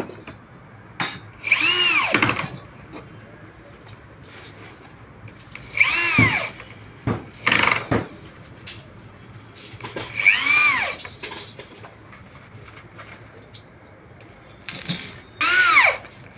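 Handheld corded electric drill run in five short bursts, drilling into a laminated board. Each time its motor spins up to speed and winds down again.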